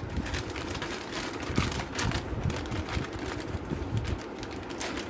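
Hands handling a motherboard and its packaging: continuous rustling with many small irregular clicks and taps.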